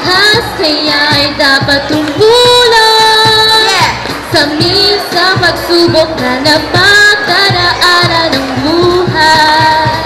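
Girls singing a melody into microphones over backing music with a steady beat, with one long held note about two and a half seconds in.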